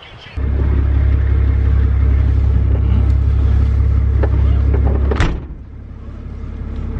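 Car driving, with a steady low rumble that eases off about five seconds in, a brief rising whoosh at that point, and then builds again.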